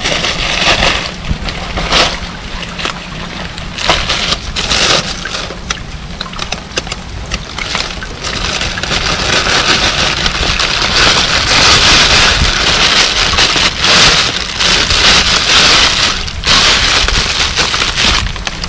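A thin plastic shopping bag crinkling and rustling as it is handled and wrapped, with sharp crackles throughout and a dense crinkling hiss that grows louder about halfway through. Under it are a steady low rumble of wind on the microphone and the hiss of rain.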